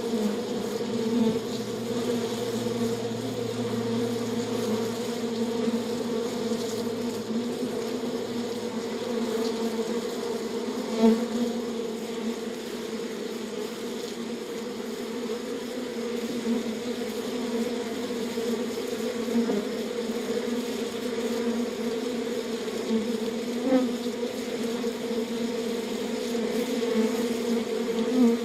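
Bees buzzing steadily, with a few brief louder swells.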